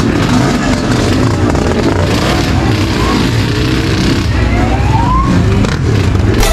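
Suzuki AX100 two-stroke single-cylinder motorcycle engine running, its pitch rising briefly a few times.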